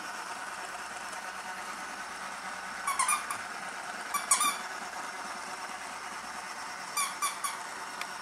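Squeaky dog toy squeezed in short pairs of squeaks: two about three seconds in, two more a second later, then three quick ones near the end, over a steady background hum.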